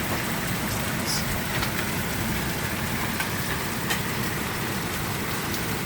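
Heavy rain falling with hail: a steady hiss broken by a few scattered sharp knocks of hailstones striking.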